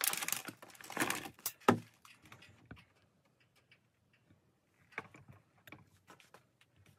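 Worms and damp castings tipped out of a plastic tray into a plastic bin, a pattering rustle for about the first second and a half. A single sharp knock follows, the loudest sound; a few light clicks and taps come near the end.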